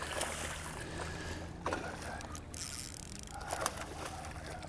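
A hooked snook splashing at the water's surface close in, a few short splashes over a steady low background hum.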